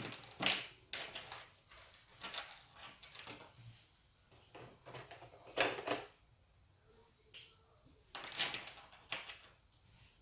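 Plastic Snap Circuits parts being picked out of their box and set down on a tabletop: irregular clicks, knocks and short rattles.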